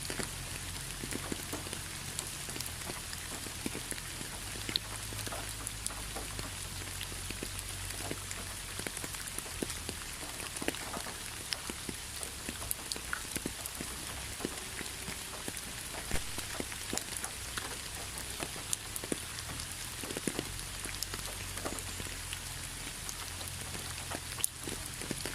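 Steady rain falling, an even hiss dotted with many separate drops ticking sharply on a surface.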